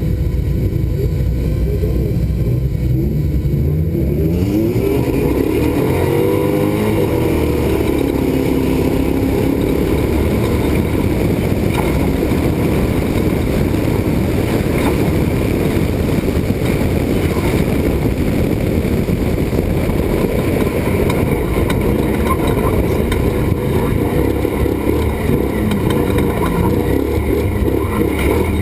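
Off-road race truck engine pulling away hard about four seconds in, its pitch rising in several sweeps as it shifts up through the gears. It then runs at speed with constant road noise and rattling.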